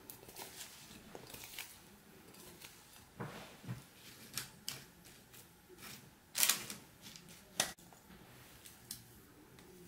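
Kitchen handling sounds of fruit being tipped into a parchment-lined baking tin and spread with a silicone spatula: irregular soft clicks, scrapes and knocks of the spatula, bowl and fruit pieces, with two sharper knocks past the middle.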